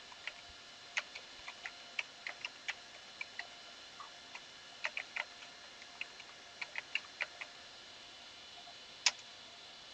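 Faint, irregular keystrokes on a computer keyboard as a command is typed, stopping for a moment after about seven and a half seconds, then one last key near the end.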